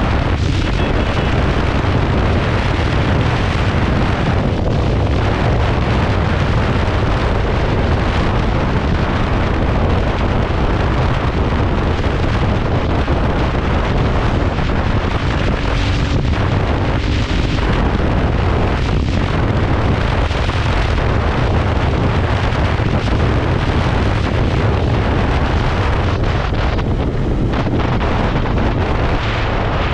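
Royal Enfield Continental GT 650's parallel-twin engine running steadily while the motorcycle is ridden at speed, buried under heavy wind buffeting on the microphone.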